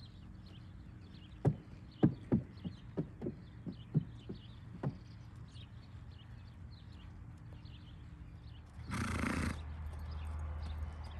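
Hoofbeats of a paint mare trotting under saddle on hard, sandy footing: about ten sharp knocks over three or four seconds. A brief rushing burst of noise comes about nine seconds in.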